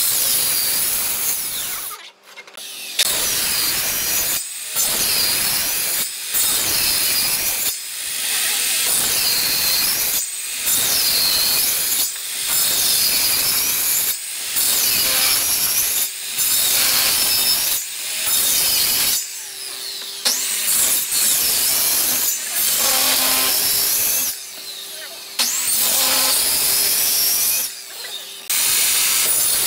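Handheld electric circular saw making a series of short cuts, groove after groove, across a hardwood stair tread. Each cut runs about one to two seconds, with brief pauses between them, about fifteen passes in all.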